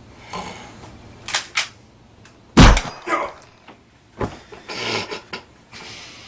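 Scattered knocks and rustling, with one loud sharp bang about two and a half seconds in and another knock a little over four seconds in.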